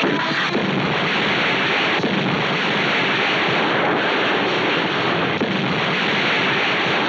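Film sound effects of a chain of large explosions: a dense, steady wall of blast noise with a few sharper bangs inside it.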